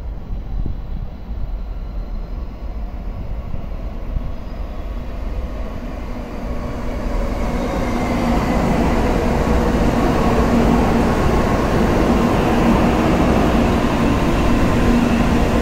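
Shinkansen train running on the track, its noise growing louder about halfway through, with a steady hum and a faint rising whine.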